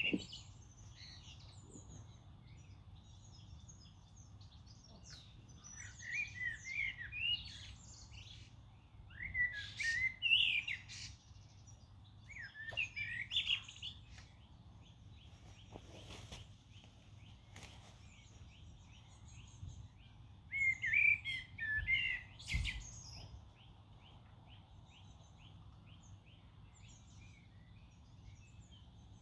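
A songbird sings short warbling phrases, about five of them a few seconds apart, over a steady low outdoor background. A faint, fast ticking call runs through the last few seconds, and there is a single low thump about three quarters of the way in.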